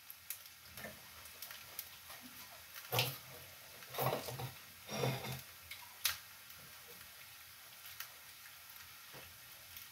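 Meat sizzling faintly in a frying pan. A few short knocks and a sharp clink of a plate being handled come about a second apart, between about three and six seconds in.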